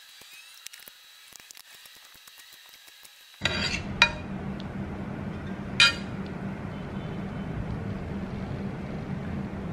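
Serving utensils clinking against a ceramic bowl and a stainless steel pan while noodles and sauce are dished up. There are faint small ticks at first, then sharp clinks about three and a half, four and six seconds in, over a steady low hum that comes in partway through.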